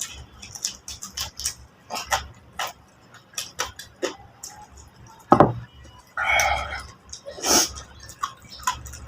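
Close-up eating sounds of chicken being eaten by hand: irregular wet chewing, lip-smacking and clicks, with one louder knock a little past five seconds in.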